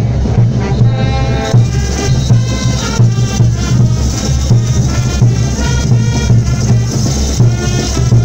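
Brass band playing festival dance music, a sousaphone bass carrying a steady beat about twice a second, with shaken percussion over it.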